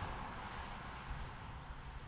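Quiet open-air background: a low steady rumble under a faint, high cricket chirp pulsing about four times a second.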